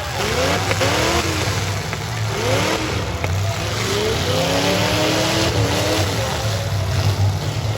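Several V8 engines revving up and down at once over a steady low rumble, with a couple of short knocks.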